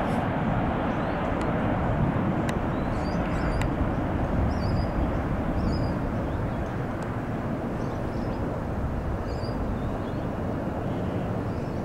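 Rolls-Royce Trent 900 turbofans of a Qantas Airbus A380 at climb power just after takeoff: a deep, steady jet rumble that slowly fades as the aircraft climbs away.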